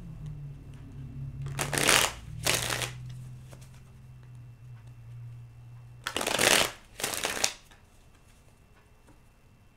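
A deck of tarot cards being shuffled by hand: two quick pairs of rustling shuffles, about two seconds in and again about six seconds in.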